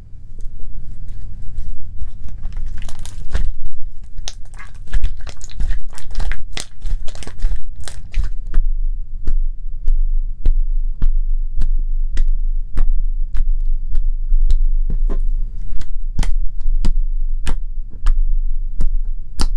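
Homemade sugar-salt-water slime being stretched and then pressed with the fingers, making wet, sticky crackling and popping. The sound is dense at first, then settles into sharp pops about twice a second from about halfway in, over a steady low hum.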